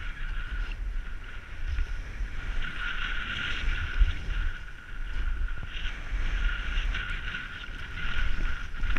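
A snowboard slides through powder snow with a continuous rushing hiss, while wind buffets the microphone in uneven low rumbles.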